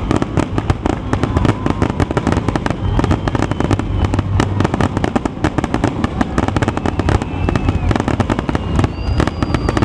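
Fireworks grand finale: a dense, unbroken barrage of aerial shells bursting, the bangs and crackles packed closely together and loud.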